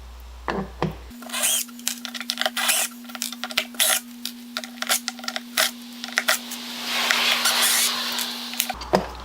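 Metal tools clicking and clinking while slotted screws are worked out of an old wooden tool box, with a longer noisy stretch of work near the end over a steady low hum.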